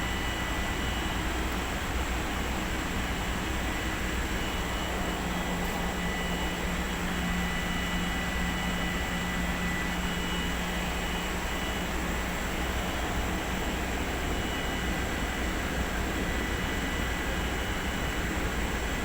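Humidifier machine running: a steady hiss with a thin, steady high whine over it.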